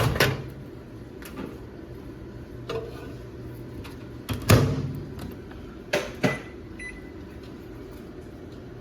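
Microwave oven being loaded and started: a few clicks and knocks, the loudest about halfway through, then short keypad beeps, under a steady low hum.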